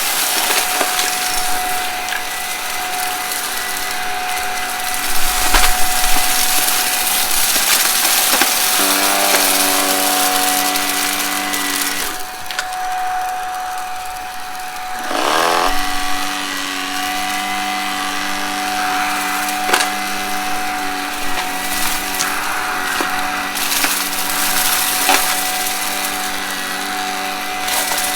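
Vacuum cleaner running with a steady motor whine while it sucks up crunchy debris from carpet, giving dense crackling and rattling. Midway the crackling eases and the pitch drops, then a rising whine comes back in.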